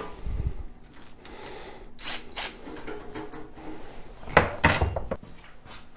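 Metal clinks and knocks as the parts of a metal snowmobile track stand are handled and fitted together by hand, with a louder clatter of metal about four and a half seconds in.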